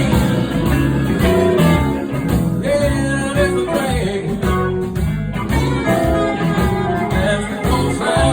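Blues band playing live: guitar lines over bass and a steady beat.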